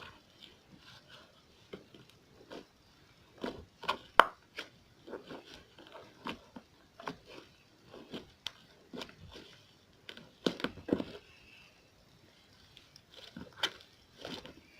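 Slime being squished and poked by hand: irregular small sticky clicks and pops, with louder clusters about four seconds in and again about ten to eleven seconds in.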